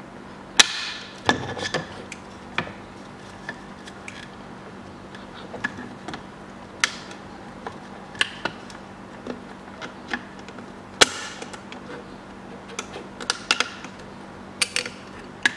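Pliers working a metal hose clamp off the hose at a power-steering fluid reservoir: scattered sharp metallic clicks and snaps, with light knocks of the plastic reservoir being handled. The two loudest snaps come about half a second in and about eleven seconds in.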